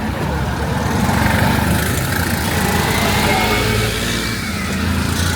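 A motor vehicle's engine running close by in street traffic, a steady low rumble amid general street noise.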